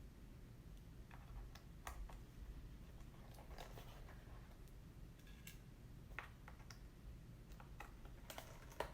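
Faint, scattered small clicks and ticks of a small Phillips screwdriver backing out the screws of a MacBook Pro's aluminium bottom case, with one sharper click near the end.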